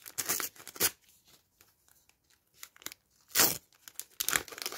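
Paper sticker packet being torn open and handled: a few short tearing and crinkling sounds, with a quiet gap in the middle and the loudest one about three and a half seconds in.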